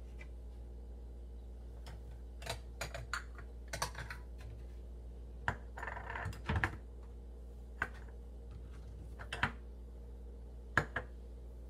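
Light clicks and taps of small glass prep bowls and a kitchen knife being picked up and set down on a plastic cutting board and counter, about a dozen scattered knocks with a short scuffling cluster about six seconds in. A steady low hum runs underneath.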